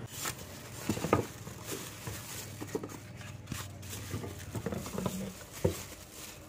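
Plastic wrapping (a low-density polyethylene bag) crinkling and rustling as it is handled around a boxed sandwich maker, with a few louder knocks from handling.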